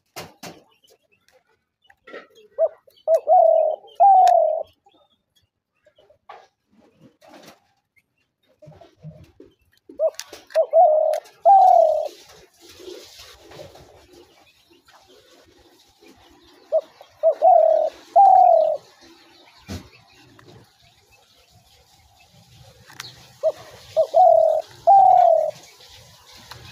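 A spotted dove cooing: four phrases, each a short lead note followed by two or three longer coos, the last one falling in pitch. The phrases repeat about every seven seconds.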